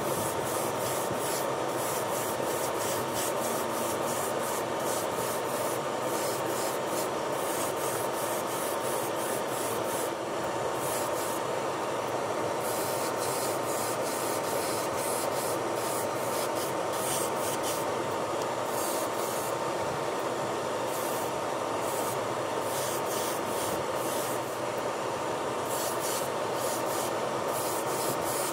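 Steady whirr of a small spray booth's extraction fan with a faint constant hum, and an airbrush spraying red paint onto a small diecast car body in many short, irregular hissing bursts.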